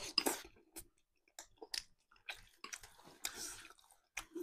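Close-up chewing of food at a meal, with short clicks coming in uneven bursts and brief pauses between them.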